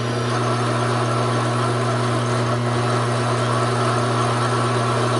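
Taig micro lathe driven by a Sherline motor, running steadily under load as a parting tool is hand-fed into a 1-inch 1018 steel bar. The motor hum is mixed with cutting noise. The motor is short on torque for this deep parting cut.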